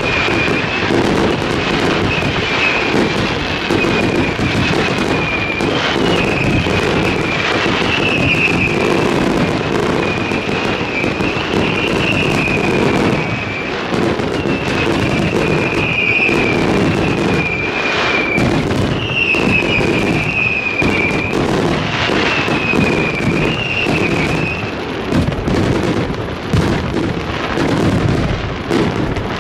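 Fireworks display: a dense run of shell bursts and crackling bangs, one after another. A wavering high whistle runs under the bangs and stops a few seconds before the end.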